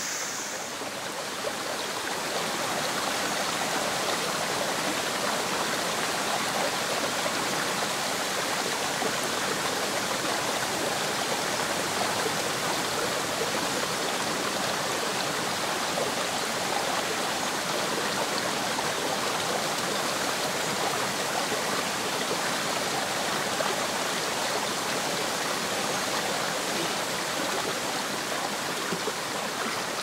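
Small waterfall pouring into a shallow, rocky stream: a steady rush of falling and flowing water.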